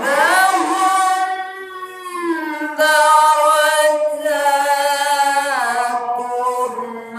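A single voice chanting one long melodic phrase in the style of Quranic recitation. It starts abruptly and sustains held notes that bend slowly in pitch without a break.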